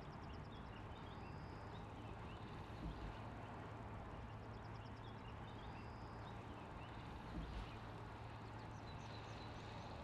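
Outdoor ambience: small birds chirping and trilling over a steady low hum and hiss, with two brief soft low thumps, one about a third of the way in and one about three-quarters through.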